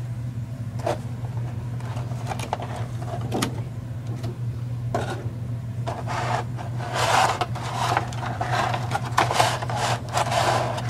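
Hands handling and opening a clear plastic clamshell package: scattered clicks and scrapes, then louder crinkling and rubbing of the plastic about seven seconds in and again near the end, over a steady low hum.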